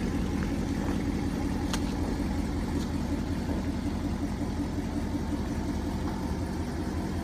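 An engine running steadily, a low even hum with no change in speed.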